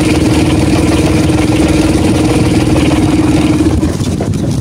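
Outrigger fishing boat's engine running steadily with a constant drone, which drops away near the end.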